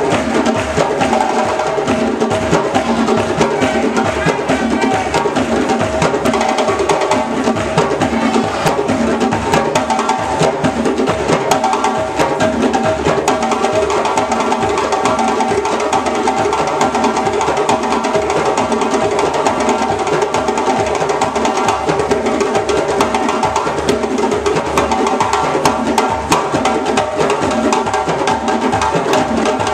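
West African drum ensemble of djembes played by hand together in a fast, dense, unbroken rhythm, with sharp slaps cutting through over deeper tones.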